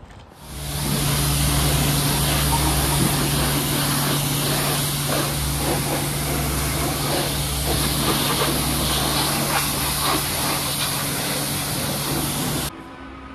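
Pressure washer running, its jet spraying water onto a trials motorbike: a steady hiss over a constant motor hum, stopping abruptly near the end.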